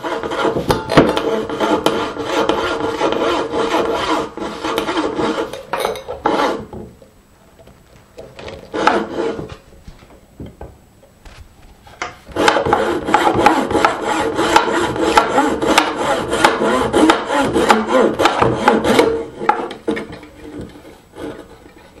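Small bow saw cutting a keyhole shape out of a wooden box front in quick back-and-forth strokes. A bout of about six seconds, a brief burst, then a longer bout of about seven seconds.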